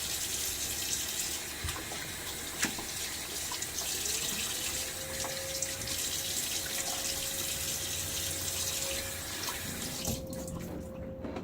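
Bathroom tap running into a sink for rinsing off, a steady splashing hiss that stops about ten seconds in. A faint steady whistle joins the water about four seconds in.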